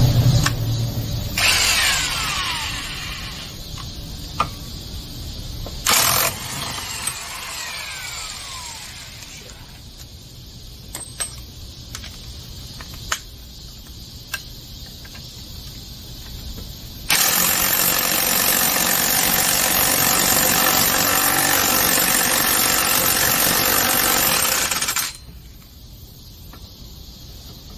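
Corded electric impact wrench working on the drive pulley and clutch nuts of a Yamaha X-max 300 scooter's belt drive. It gives short bursts that spin down with a falling whine and a few sharp clicks, then hammers steadily for about eight seconds before cutting off suddenly.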